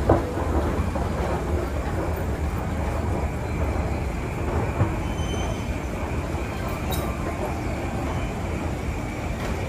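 Steady low rumble and clatter of a train at the railway station, with a sharp click just after the start and a knock about five seconds in.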